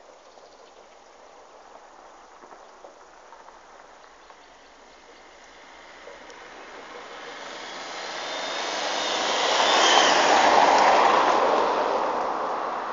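A vehicle passes by: a rushing noise builds over several seconds, is loudest about ten seconds in, then fades.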